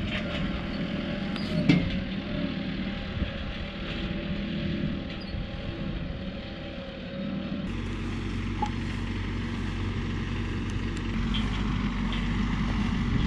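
Tractor engines running steadily at work. About two-thirds of the way in the sound changes abruptly to a louder, deeper rumble of closer tractors pulling a hay rake and a small square baler, growing slightly louder near the end.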